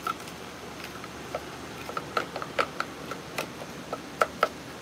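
A utensil knocking and scraping against a plastic food processor bowl as a thick, pasty mixture is stirred: a series of irregular sharp ticks, the loudest a little past four seconds in.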